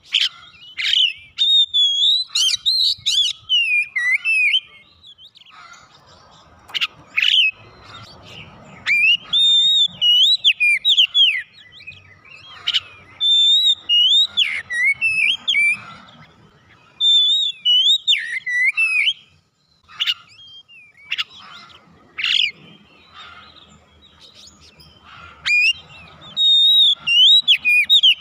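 Oriental magpie-robin singing: bursts of loud, rapid whistled phrases with rising and falling glides and sharp chips, with short pauses between the bursts.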